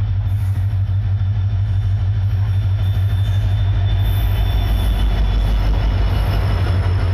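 EMD WDP4D diesel locomotive passing close at low speed as it pulls into a station, its two-stroke engine giving a steady deep drone over the noise of wheels on rail. A thin high wheel squeal sounds from about a second and a half in until about five seconds in.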